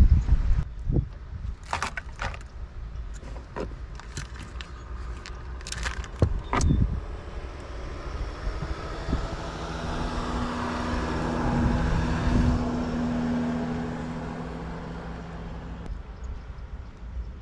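Clicks and rustles of fishing line, a hook and plastic tackle packets being handled while a knot is tied. About halfway through, a vehicle is heard driving past, growing louder and then fading away.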